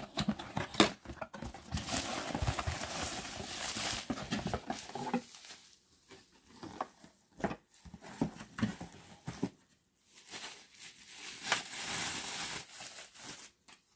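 Packaging being handled: a cardboard box opened and a bubble-wrapped pop-up socket unit pulled out and unwrapped, with rustling cardboard and crinkling bubble wrap. A dense rustle fills the first few seconds, then scattered clicks and short rustles follow, with another burst of crinkling near the end.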